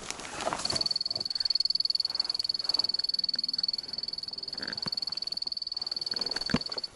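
GDD BM8 Beep Mat sounding its alarm: a steady, high-pitched, rapidly pulsing beep that starts about a second in. It signals a magnetic anomaly in the rock beneath the sled, which the operator takes to be magnetite. A knock from handling comes near the end.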